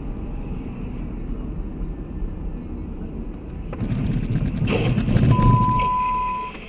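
Vehicle and road noise that grows louder about four seconds in. A single steady high beep lasts about a second near the end.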